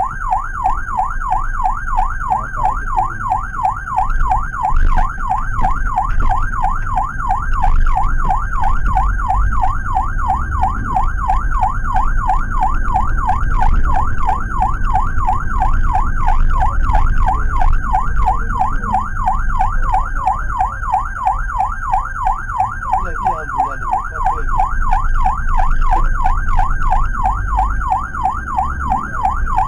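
Electronic ambulance siren in a fast yelp, rising and falling rapidly and evenly without a break, heard from inside the cabin of the Suzuki APV ambulance. Beneath it is the low rumble of the van's engine and road noise.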